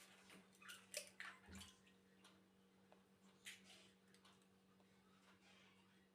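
Faint scattered clicks and light knocks with soft rustling, over a steady low hum.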